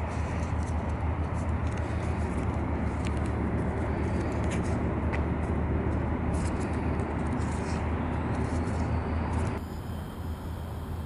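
Steady low outdoor rumble, with scattered faint crinkles and clicks of a paper origami crane being creased between the fingers. The rumble eases near the end.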